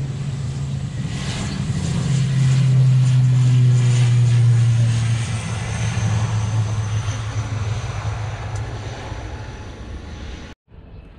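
Twin-engine turboprop airliner on its takeoff run, its propellers making a steady low drone that dips slightly in pitch about two seconds in. The drone is loudest over the next few seconds, then fades as the aircraft pulls away, and it breaks off abruptly near the end.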